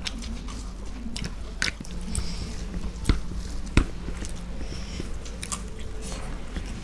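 Close-up eating sounds: chewing and mouth clicks, with two louder sharp clicks a little past halfway, over a steady low hum.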